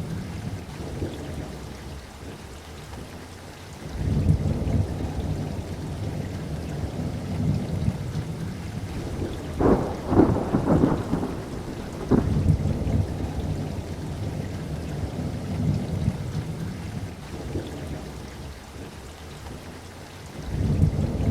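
Steady rain with rolling thunder: a rumble swells about four seconds in, a sharper crack of thunder comes about halfway through, and another rumble builds near the end.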